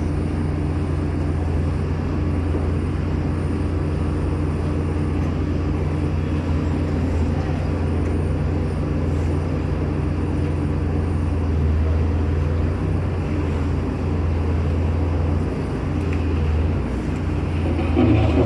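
Giken Silent Piler sheet-pile press-in machine and its diesel hydraulic power unit running with a steady, low engine drone.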